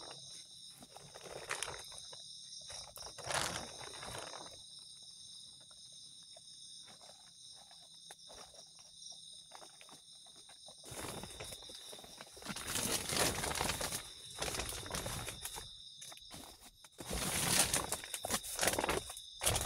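Insects calling steadily at several high pitches throughout. Footsteps scuff on dry leaf litter in the first few seconds, then from about eleven seconds in comes loud rustling and crinkling of a plastic tarp as someone crawls into a tarp shelter, twice.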